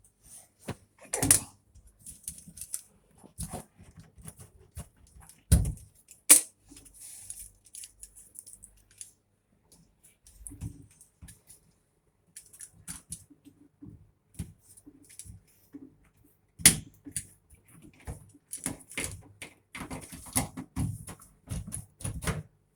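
Irregular clicks, knocks and light rattles of hands working on an LG washing machine's door lock switch, parts clicking and tapping, with a few sharper knocks about six seconds in and again about seventeen seconds in.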